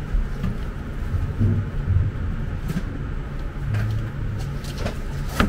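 A low background rumble that swells and fades, with a few faint knocks and a sharp click near the end.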